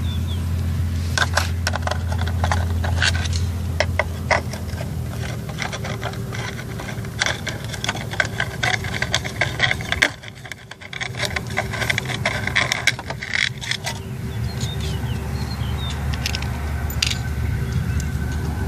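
Homemade RC excavator with its motor humming steadily while hands handle its metal parts, giving repeated clicks, scrapes and rattles. The hum cuts out for about a second about ten seconds in, then resumes.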